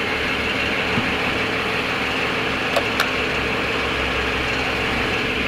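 BMW N54 twin-turbo inline-six idling steadily, heard from inside the cabin with the ventilation fan running. A few light clicks, about a second in and twice near the middle, as the steering-wheel buttons are pressed.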